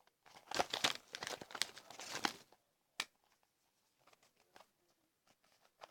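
Wrapping of an L.O.L. Surprise toy ball crinkling and tearing as a layer is pulled open by hand, dense for about two seconds, then one sharp click about three seconds in and a few faint rustles.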